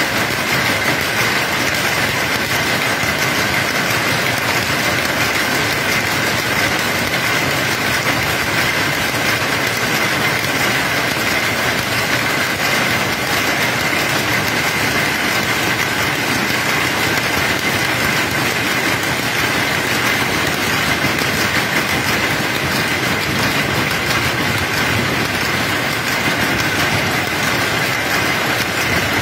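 A shed full of power looms running together: a loud, dense, unbroken mechanical clatter of many looms beating at once, with a steady high whine running through it.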